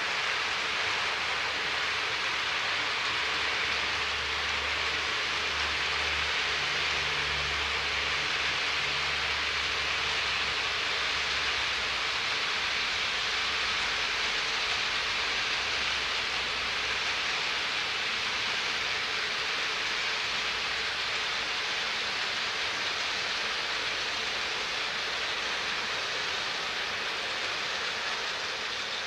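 HO-scale model freight train rolling past on the track: a steady rushing hiss, with a low hum that comes in for a while in the first half.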